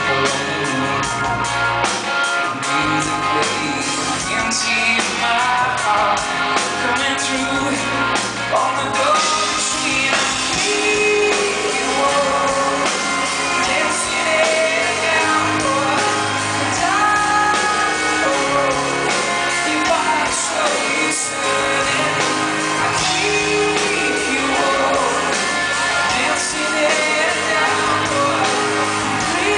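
Live rock band playing a song, with a male lead singer singing over it, recorded from among the audience.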